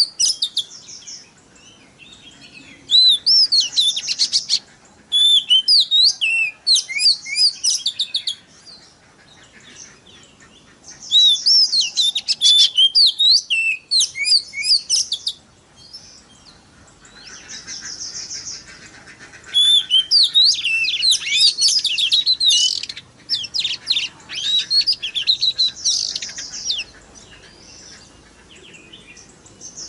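Oriental magpie-robin (kacer) singing: loud phrases of rapid, sharply sliding whistles and chattering trills, each lasting a few seconds, broken by short pauses.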